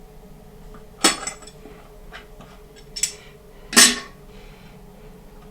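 Metal hand tools being handled and set down with three sharp clinks: one about a second in, one around three seconds, and the loudest just before four seconds.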